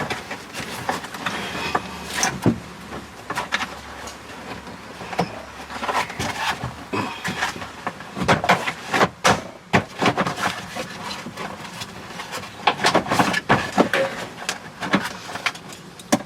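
Shifter and console parts of a Can-Am Maverick X3 being worked back into place by hand: irregular clicks, knocks and rubbing, busiest in the second half.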